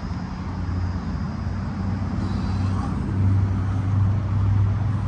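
Steady low hum of a motor vehicle engine running, growing louder about three seconds in, under outdoor background noise.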